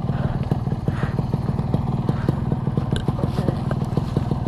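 Yamaha RX-King's two-stroke single-cylinder engine running at a steady, even speed, its exhaust giving a rapid regular pulsing beat.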